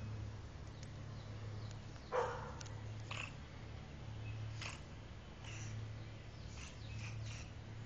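North American river otter pups calling: a string of short, separate calls, the loudest about two seconds in and several fainter ones after it.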